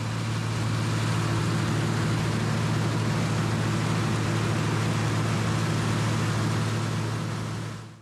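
International 686 tractor running with a mounted New Idea corn picker working through standing corn: a steady engine hum under the picker's machinery noise. The sound fades out near the end.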